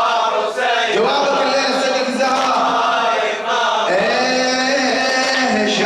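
A radood's voice chanting a Muharram elegy, holding long melodic notes, with new phrases beginning about a second in and about four seconds in.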